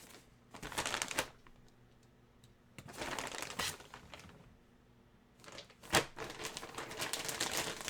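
Packaging rustling and crinkling in several spells as a jersey is handled and unwrapped, with one sharp click about six seconds in.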